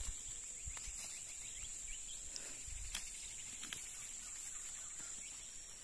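Insects in the field and forest keep up a steady, high-pitched drone, with a few faint clicks over it.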